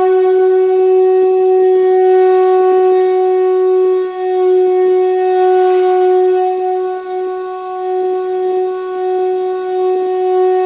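A wind instrument sounding one long, steady held note, dipping briefly in loudness about four and seven seconds in.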